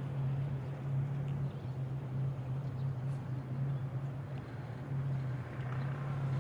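Car driving, heard from inside the cabin: steady engine and road noise with a constant low hum.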